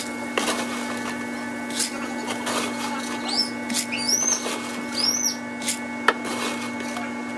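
A steady household-appliance hum with scattered clicks and taps, and three short, high, arching squeaks about three to five seconds in.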